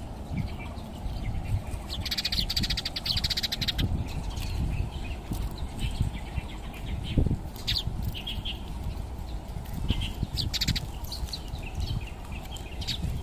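High chirps and rapid chittering trills: a long, very fast trill about two seconds in, then shorter trills and scattered chirps, over a steady low rumble.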